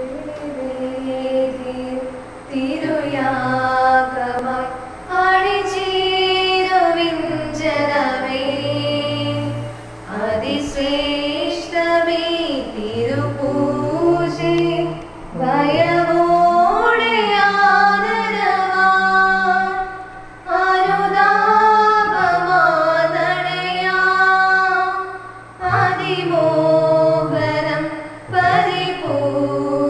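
Church choir singing a Malayalam hymn, with a woman's voice to the fore, in long melodic phrases and short breaks between them.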